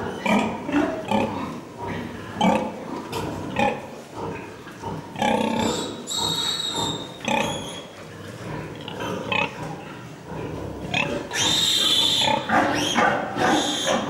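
Pigs in a farrowing shed grunting over and over, with two long high-pitched squeals, one about five seconds in and one about eleven seconds in.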